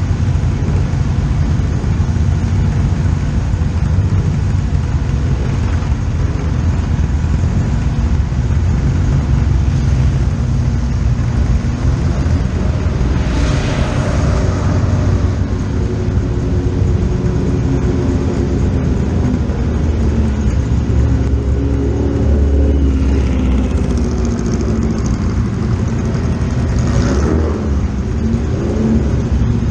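Historic racing car engines running, with a steady heavy low rumble; engine pitch rises and falls in the second half, and louder swells about halfway through and again near the end suggest cars going past.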